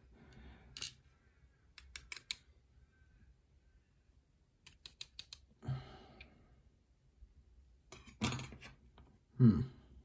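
Small sharp metallic clicks and taps from handling a disassembled pin-tumbler lock: tweezers and tiny lock pins and springs on a plastic pin tray, with a tool working at the brass cylinder. The clicks come in quick clusters of three or four, with a couple of soft rustling sounds in between.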